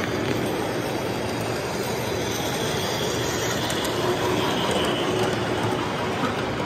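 Model train running along its track, a steady rolling noise of wheels on rails.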